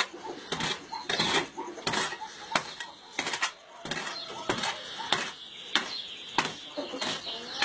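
A long-handled hoe chopping and scraping into dry, hard dirt, in repeated sharp strokes at about three every two seconds.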